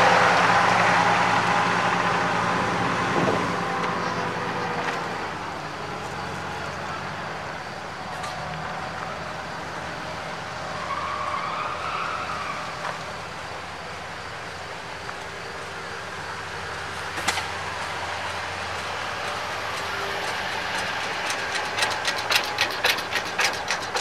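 An antique tractor's engine running as it pulls away, fading over the first few seconds and leaving a quieter rumble of idling parade traffic. Near the end, a fast ticking knock from an approaching vehicle's engine grows louder.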